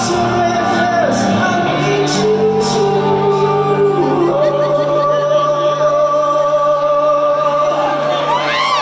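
A live rock band with a male lead singer holding long notes over a sustained electric guitar chord, heard in a concert hall. Near the end, whoops from the crowd break in.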